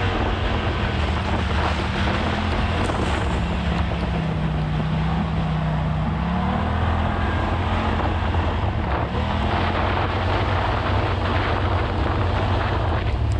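Side-by-side UTV engine running while driving on a trail, with wind noise on the microphone. The engine note drops about four seconds in and climbs back up a couple of seconds later.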